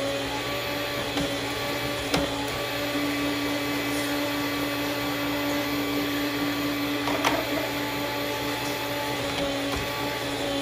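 Electric meat slicer motor running with a steady hum while slicing cucumbers, with a couple of brief sharp clicks.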